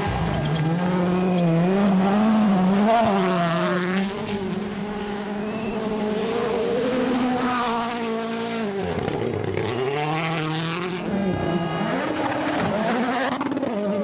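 WRC Rally1 cars, a Ford Puma and a Hyundai i20 N, with 1.6-litre turbocharged four-cylinder engines, driven flat out on gravel stages. Engine pitch climbs and drops through gear changes and lifts. The sound changes abruptly about four and eight and a half seconds in as one car gives way to the next.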